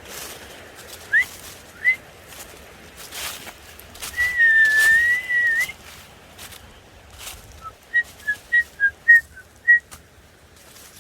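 A person whistling: two short rising chirps, then a long wavering note, then a quick run of about eight short notes at different pitches. Faint clicks and rustles sound underneath.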